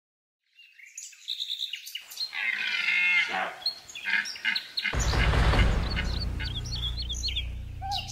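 Birds chirping and calling. About five seconds in, a loud, deep rumble sets in and holds steady beneath them.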